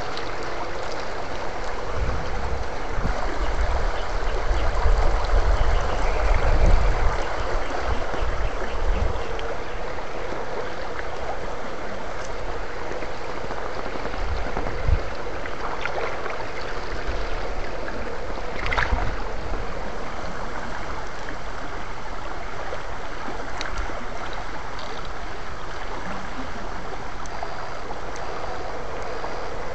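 Shallow rocky stream running and splashing close to the microphone, with water stirred by electrofishing probes wading through it. A stretch of low rumbling a few seconds in, and a sharp knock about halfway through.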